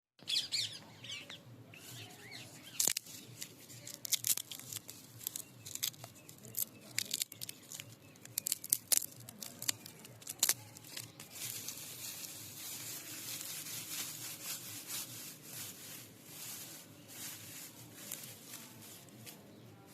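Hands working on a mango plant: a series of sharp snaps and clicks, like stems being broken or torn, then a steadier rustling hiss from about halfway through.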